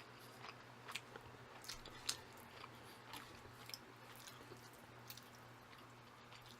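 Faint close-miked chewing of instant jjajang ramen noodles: soft wet mouth clicks and smacks, the loudest about two seconds in, over a steady low hum.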